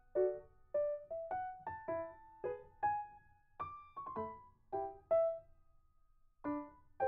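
Background music: a piano playing a slow, gentle melody of single notes and small chords, each note fading after it is struck, with a short pause about a second before the end.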